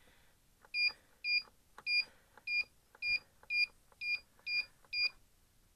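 Lost-plane locator beeper inside an Easystar 2 RC foam plane, switched on from the transmitter through a kill switch on channel 7. It gives nine short, high beeps, about two a second, starting just under a second in.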